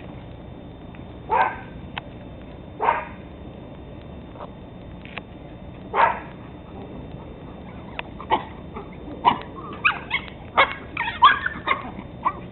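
Teddy Roosevelt Terriers barking in play: a few single sharp barks a second or more apart, then a quick run of yips and barks over the last few seconds.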